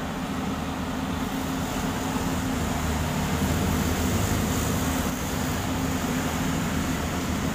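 Komatsu hydraulic excavator's diesel engine running steadily close by under load as it swings and lowers a precast concrete box culvert hung from its bucket, getting a little louder about two seconds in.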